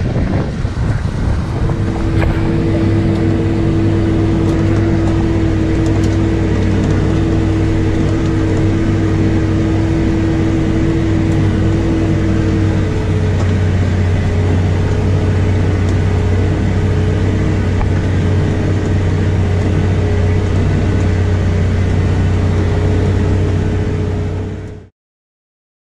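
Case Maxxum tractor's diesel engine running steadily under load, heard from on board as it pulls an offset disc harrow through the soil; the sound cuts off abruptly near the end. A brief rush of wind on the microphone comes first.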